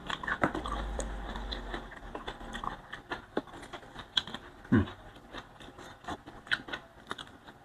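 Close-up eating sounds: a person chewing boiled bitter gourd shoots, with many small clicks and crackles as the tender stems and leaves are broken and stripped by hand. A short low thump comes about five seconds in.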